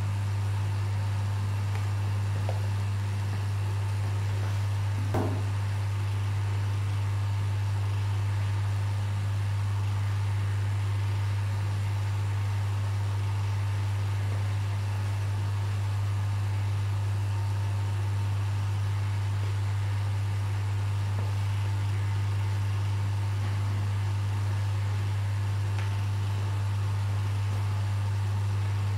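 Marine aquarium equipment humming steadily, a constant low electric hum. There is one short click about five seconds in.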